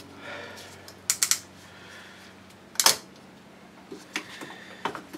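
A few sharp clicks and knocks of parts and tools being handled: a quick run of three about a second in, the loudest single knock near three seconds, then fainter ticks near the end.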